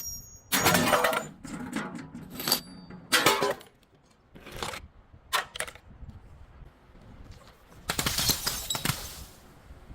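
Things being crushed and broken: a string of irregular crunching and cracking bursts, the largest about a second in, around three seconds and near the end, some with a brief high ringing.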